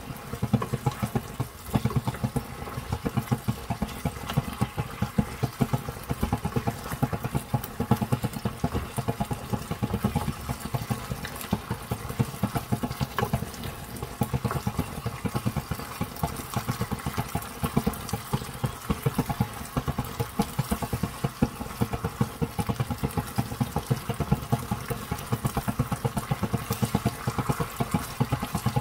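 Sweet-and-sour sauce bubbling and crackling in a frying pan as a wooden spatula stirs and scrapes through it, over a steady hum.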